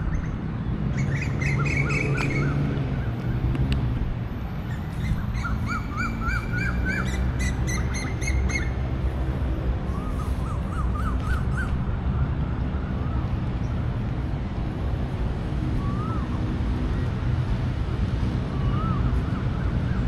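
Birds calling: several runs of quick, repeated pitched calls in the first twelve seconds, then single calls every few seconds, over a steady low hum.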